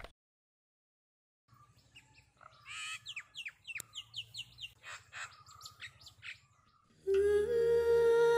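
A small bird chirping: a quick series of short, high, downward-sweeping chirps after a second or so of silence. Near the end, background music with long held tones comes in.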